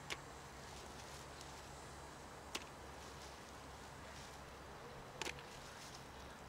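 Sharp taps of crawfish landing in a plastic bucket: three clicks about two and a half seconds apart, the last one doubled, over a faint steady outdoor hiss.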